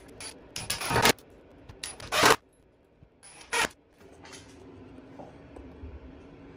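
Cordless drill driving screws through a steel hinge into a wooden frame, in three short bursts.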